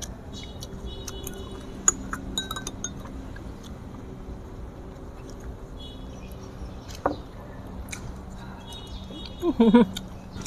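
Chopsticks clicking and clinking against a ceramic plate of dumplings, with scattered light taps, some ringing briefly; a short vocal sound near the end.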